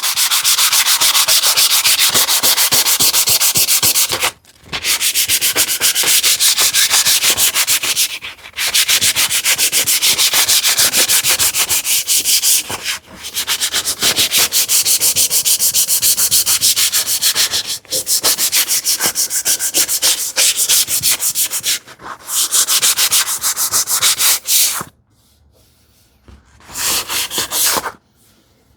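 220-grit sandpaper rubbed by hand over the rounded corner of a wooden furniture leg, in fast back-and-forth strokes. The sanding comes in runs of a few seconds with brief pauses between, and stops near the end apart from one short burst.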